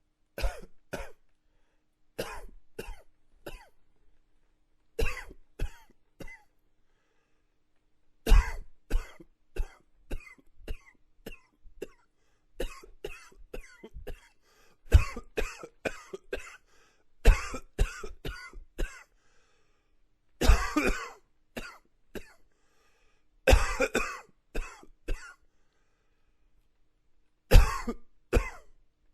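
A man coughing in repeated bouts, each a quick run of several short, dry coughs, with a pause of a second or two between bouts.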